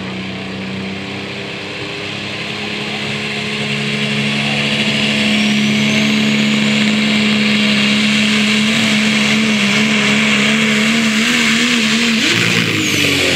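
Dodge Ram super stock diesel pulling truck's engine running hooked to the sled, its note getting louder a few seconds in and holding a steady drone that begins to waver. Near the end the pitch jumps up suddenly as the truck goes to full power in the pull.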